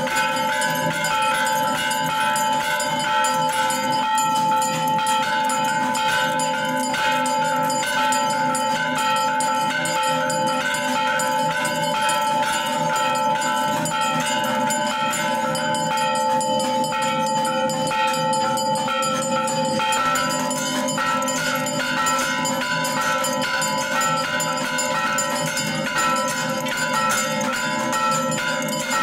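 Temple bells rung without pause. Rapid, unbroken metallic strikes sit over a steady ringing of several overlapping bell tones.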